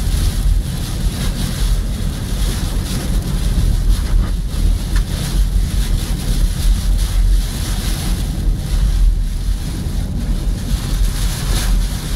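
Heavy storm rain and wet-road noise heard inside a moving car: a steady loud rush with a deep rumble underneath.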